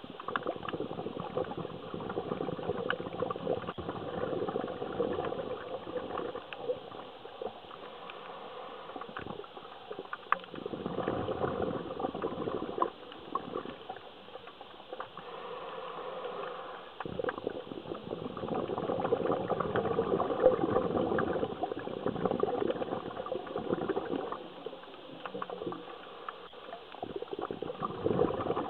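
A scuba diver's regulator exhaling, recorded underwater: breath bubbling out in bursts of a few seconds each, with quieter gaps for the inhales.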